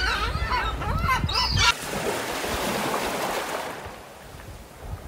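A voice over a low rumble cuts off about a second and a half in, and a wash of ocean waves follows, swelling and then fading away.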